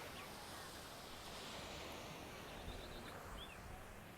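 Quiet beach ambience: a soft, steady wash of outdoor noise with a few short, high bird chirps about three seconds in.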